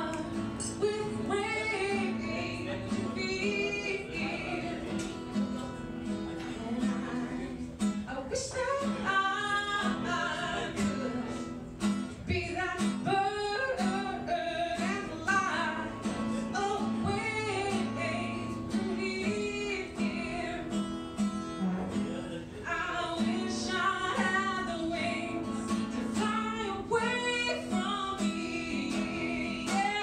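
Live acoustic-band music: a woman singing over strummed acoustic guitar, with grand piano and bass guitar accompanying.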